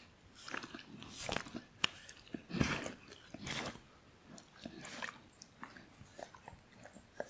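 Dog chewing, with irregular crunches and wet clicks coming every fraction of a second to a second.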